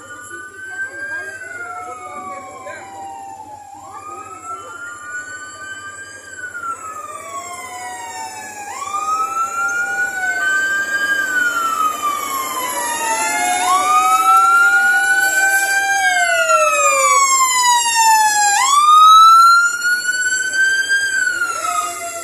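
Fire truck sirens wailing, each wail rising quickly and falling slowly, with the wails overlapping one another. The sound grows louder as a fire truck passes close by and is loudest near the end.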